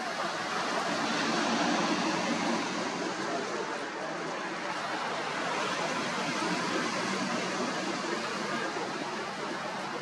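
Steady rushing wash of sea surf on a shingle beach, an even hiss with no separate breaks or calls standing out.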